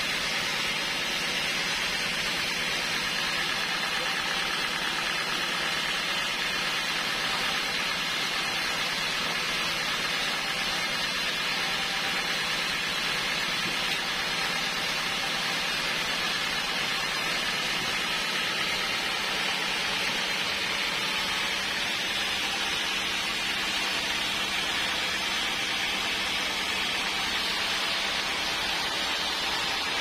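Band sawmill running steadily at a constant pitch and level while idling, not yet cutting.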